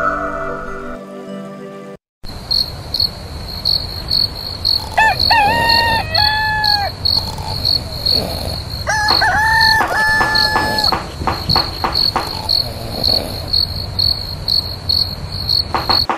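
Crickets chirping steadily at about two chirps a second, with a rooster crowing twice, about five and nine seconds in.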